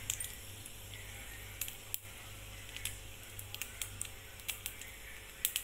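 Mustard seeds popping in hot sesame oil in a kadai as they are tempered: faint scattered pops and crackles, coming thicker near the end.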